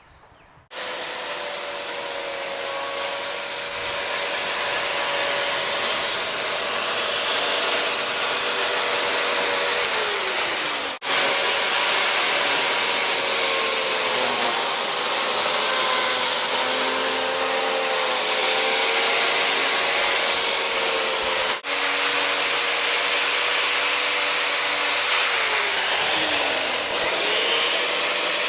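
Chainsaw running hard while carving wood, its engine pitch sagging under load and picking up again as it bites and clears the cut. The sound breaks off for an instant twice along the way.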